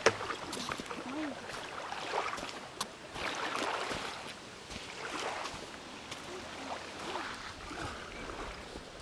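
Small lake waves washing onto a sandy shore, coming in several rising and falling swells.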